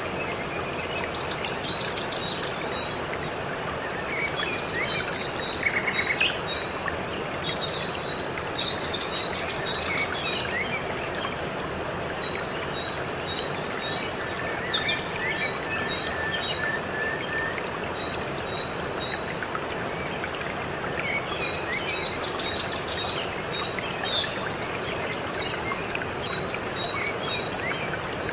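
Steady rush of a waterfall, with songbirds singing over it: several fast trills, and through the second half a run of short, evenly repeated chirps.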